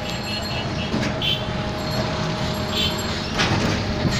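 Steady urban traffic rumble from running vehicles, with a couple of short high chirps and a brief knock about three seconds in.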